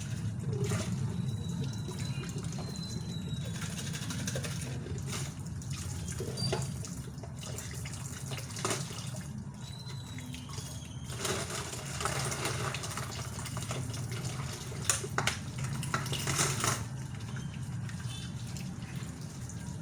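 Water running from a kitchen tap into a sink, splashing steadily, with a few sharp knocks near the end.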